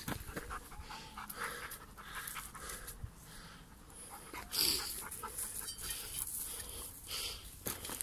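Dog panting hard in quick, uneven breaths, with footsteps and rustling on dry, leaf-strewn ground.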